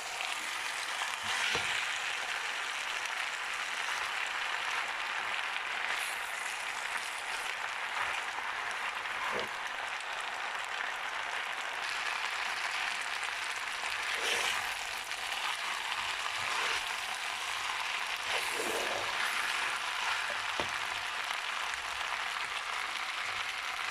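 Food sizzling and frying in a hot wok, a steady hiss with occasional light clicks and knocks, as the spaghetti, chicken and vegetables finish cooking.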